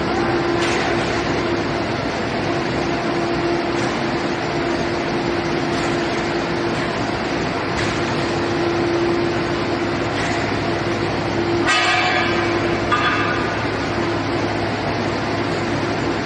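Steady running of industrial plant machinery with a constant hum, a few faint ticks, and a brief high squeal about twelve seconds in.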